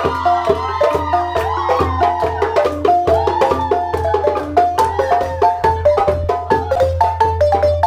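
Wooden xylophone (balafon) struck with mallets in a quick, repeating melody, with hand-drum strokes and a steady low drone underneath.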